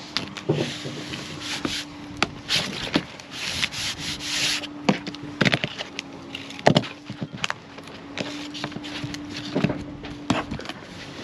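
Plastic sheeting crackling and rustling under hands and knees as duct tape is smoothed along the seams, with several short rasping stretches in the first half. A faint steady hum runs underneath.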